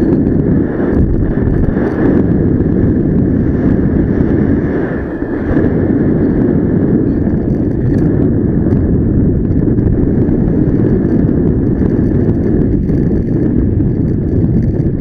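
Loud, steady wind rushing and buffeting over the microphone of a paraglider in flight.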